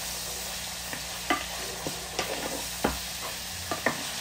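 Ground beef and onions sizzling in a frying pan while two wooden spoons stir and scrape through it. A few sharp, irregular knocks of the spoons against the pan.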